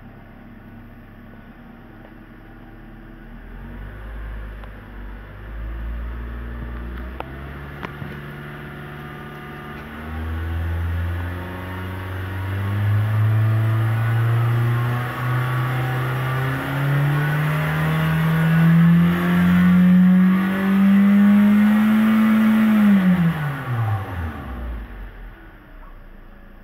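Toyota 2ZR-FE 1.8-litre four-cylinder engine with its factory exhaust, revved slowly from idle toward its redline. The pitch climbs in small steps for about twenty seconds and gets steadily louder. Then the throttle is released and the engine drops quickly back to idle, about three seconds before the end.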